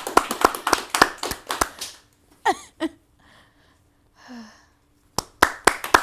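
A few people clapping at a brisk pace for about two seconds, then a short pause with a couple of brief voice sounds, and the clapping starts again about five seconds in.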